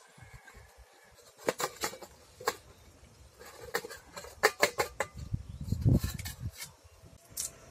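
Stainless steel plates clinking and knocking against each other and the pot rim as they are handled to flip a steamed egg, in irregular clusters of sharp metallic clicks, the loudest about halfway through and near six seconds in.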